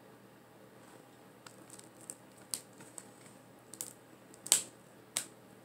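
Small plastic clicks and scrapes of a bath bomb mold as its two halves, packed with crumbly bath bomb mix, are pressed and twisted together. The clicks come irregularly from about a second and a half in, with the sharpest one about three-quarters of the way through.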